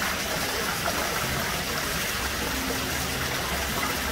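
Steady rush of water in a koi pond: water pouring into the pond, with koi churning the surface as they crowd in to feed.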